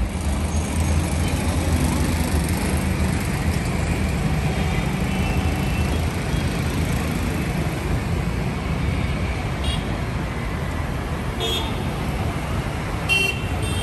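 Steady rumble of city road traffic, with engines running. Short vehicle horn toots sound three times in the second half, the last one the loudest.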